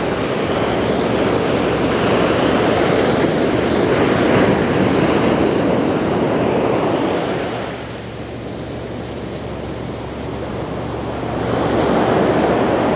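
Ocean surf washing onto the beach: a steady rush that eases about eight seconds in, then builds again as the next wave comes in near the end.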